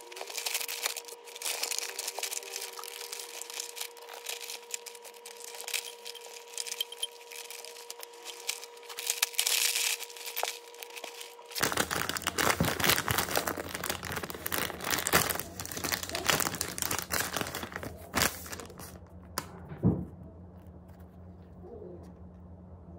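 Rustling and crinkling as a padded quilted fabric bag is handled, over a faint steady hum. About twelve seconds in, a louder stretch of crisp crackling and tearing follows as a paper bakery bag is opened and a bagel is taken out.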